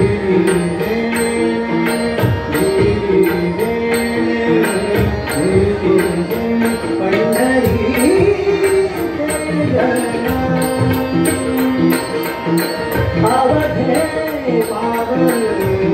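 Live abhang singing: a male voice sings a gliding melody over held harmonium notes, with tabla strokes and a steady high tick keeping the beat about two or three times a second.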